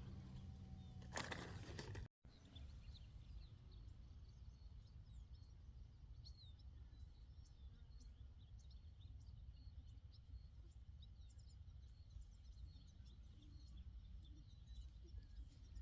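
Faint outdoor ambience: many small birds chirping quietly over a low, steady wind rumble.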